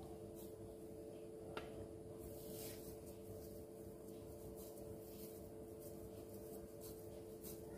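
Faint soft rubbing and squishing of hands pressing a mashed potato and poha mixture into long cutlets, with a small click about a second and a half in, over a steady low hum.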